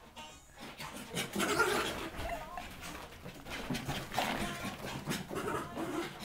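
A small dog panting, among scattered rustles and knocks.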